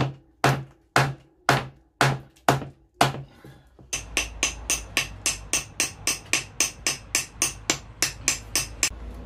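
Hammer blows on a steel axe head set on a wooden stump, in changing the axe's handle. Seven sharp, even knocks about half a second apart, then a quicker run of about four lighter, brighter blows a second that stops shortly before the end.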